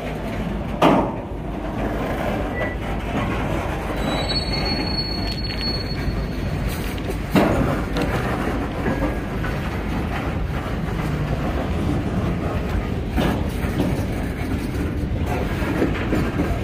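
Freight cars rolling past: a steady rumble of steel wheels on rail. There are sharp clanks about a second in and again about seven seconds in, and a brief high wheel squeal around four seconds in.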